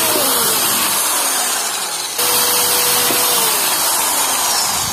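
Electric drill running, boring through a wooden saw handle. It dips briefly about two seconds in, then runs again, with its tone sagging in pitch near the end.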